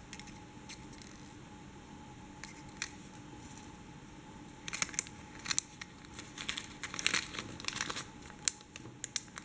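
Small clear plastic zip-lock bag crinkling and rustling as fingers handle it, with a few light clicks. The crinkling comes in quick spurts over the second half.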